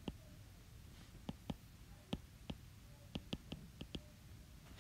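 Stylus tip tapping and clicking on a tablet's glass screen while handwriting: about a dozen faint, sharp, irregular clicks.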